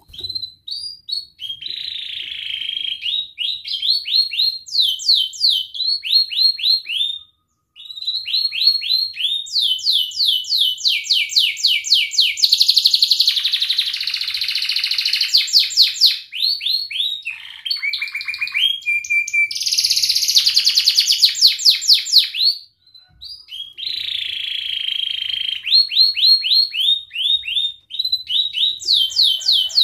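Domestic canary singing a long song of fast repeated chirps and rolling trills, broken by two short pauses, about 7 and 23 seconds in.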